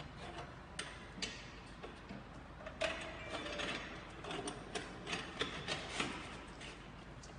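Irregular light clicks and knocks of a screen-printing press's metal screen frame and registration clamp knobs being handled and adjusted, with the clicks coming more often in the second half.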